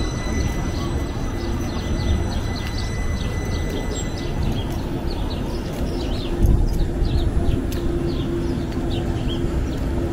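City street ambience: a steady low rumble of traffic with a steady hum, and small birds chirping over and over in the street trees. A thin steady whine stops about halfway through.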